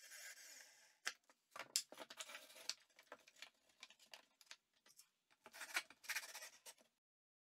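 Faint clicks, taps and scrapes of hands handling a cordless drill, screws and a plywood piece on a workbench, with a denser run of scraping and clicking near the end.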